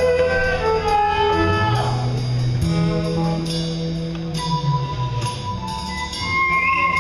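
Live electric guitar solo on a sunburst Les Paul-style guitar, with the band's low notes underneath. A quick run of notes falls in pitch over the first two seconds, then long sustained notes follow, and a string bend rises in pitch near the end.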